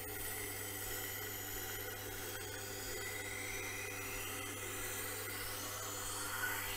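Tormek wet sharpening machine running with a steady motor hum while a kitchen knife held in its jig is ground against the turning wheel, a continuous scraping rasp. A high scraping tone rises in pitch over the last few seconds.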